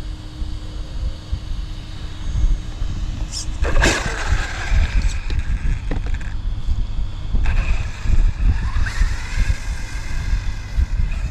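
Gusting wind buffeting the microphone, with a high electric whine from a 1/8-scale RC car's brushless motor in two stretches, about four seconds in and again from about seven seconds, rising in pitch as it speeds up.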